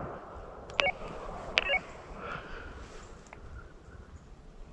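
Two-way hunting radio: a click as a transmission drops, then two short electronic chirps under a second apart, with faint hiss between them.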